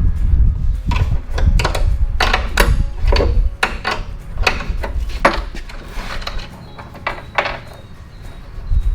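Irregular metallic clanks and knocks over a low rumble, from stainless steel stock being worked on in a metal shop.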